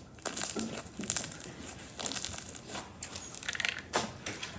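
Hands squeezing and pressing a pink slime, making short crackly popping sounds in an irregular run.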